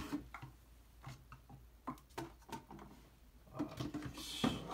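Scattered light knocks and taps, irregular and a fraction of a second apart, from someone moving about a small room off camera, with a brief rustle and a louder thump near the end.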